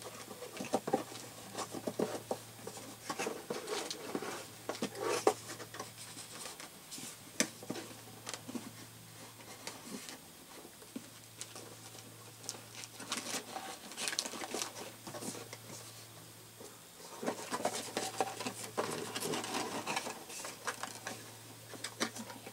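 Small plastic toy pieces and cups being handled and packed into a plastic container, with plastic bags crinkling and scattered irregular clicks and taps. A faint low hum runs underneath.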